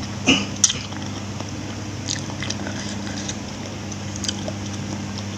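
A person eating rice with long beans and meatballs close to the microphone: chewing, with a few short, sharp mouth smacks or utensil clicks. A steady low hum runs underneath.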